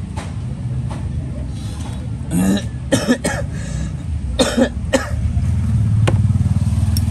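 A person coughing a couple of times, with a few short sharp clicks in between, over a steady low rumble.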